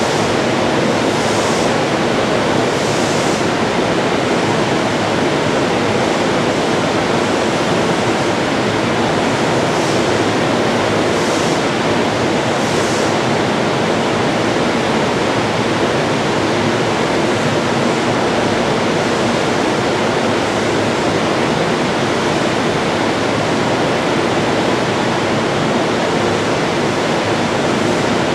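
Steady noise of a JR EF510 electric locomotive's cooling blowers running while it stands at the platform, even and unchanging.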